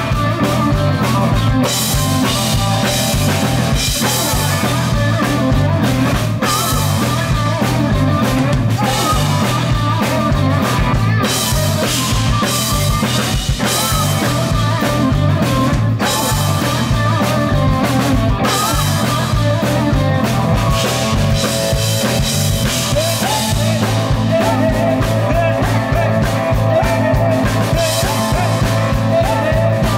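Live rock band playing: drum kit, electric bass and electric guitar in a steady driving rhythm.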